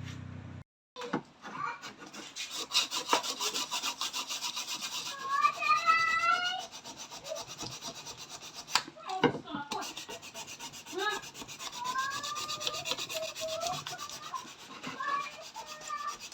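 Rapid rasping, scraping strokes on a PVC drain pipe or fitting, typical of rough spots being worked down so the pipe will fit. High, gliding voice-like calls sound over it in places.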